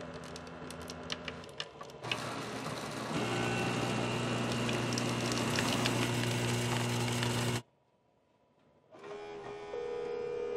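An office coffee machine runs with a steady mechanical hum as it dispenses coffee into a paper cup, then cuts off abruptly. Near the end a phone's ringback tone starts.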